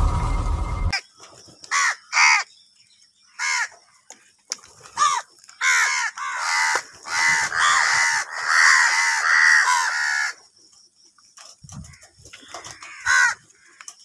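A flock of house crows cawing: single harsh caws at first, then several birds calling over one another in a dense run for about four seconds, a short lull, and a few more caws near the end. A low rumbling intro sound effect fills the first second.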